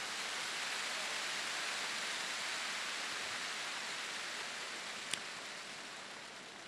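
Sound of rain, a steady hiss that swells over the first couple of seconds and then slowly fades, with one sharp click about five seconds in.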